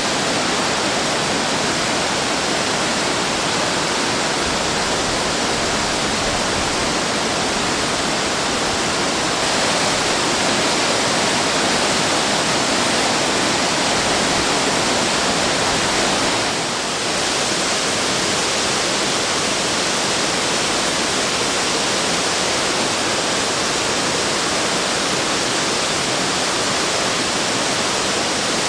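Waterfall pouring, a steady, loud rushing of falling water. It swells slightly through the middle and dips briefly about two-thirds of the way in.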